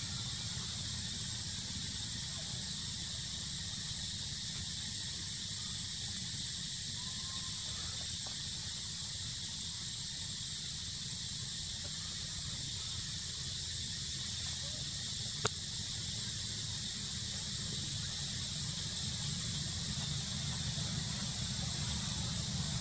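Steady outdoor ambience in trees: a constant high insect drone over a low wind rumble, with one sharp click about two-thirds of the way through.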